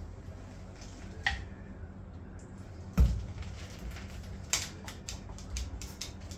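Scattered clicks and knocks of hard objects being handled, with a heavier dull thump about three seconds in and a few light ticks near the end.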